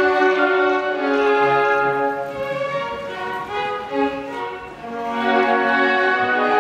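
Live string ensemble of violins playing sustained, held chords. The sound drops away briefly about two thirds of the way in, then swells back up.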